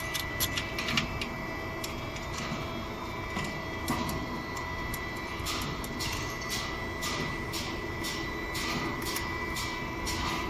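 Toyota Yaris engine running steadily at idle, with a run of sharp clicks at about two a second through the second half.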